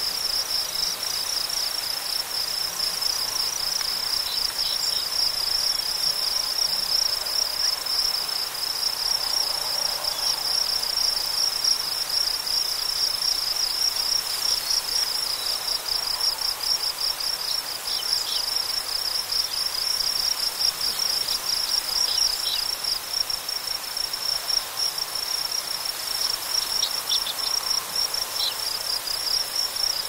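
Cricket chorus: a steady, fast-pulsing high trill, with a soft hiss of wind through tall prairie grass underneath. A few faint, brief high notes break in now and then.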